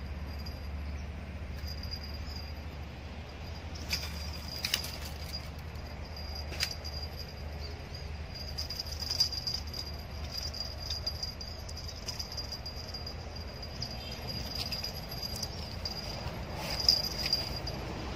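An insect trilling steadily at one high pitch, swelling and fading without a break, typical of a cricket. A few short sharp clicks come about four seconds in, once near seven seconds and once near the end.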